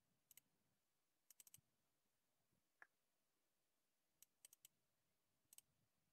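Faint computer mouse clicks, mostly in quick pairs like double-clicks and small runs of three or four, spread across a few seconds.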